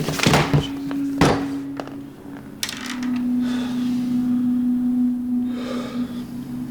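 Background music holding a steady low note, with a few sharp knocks in the first three seconds.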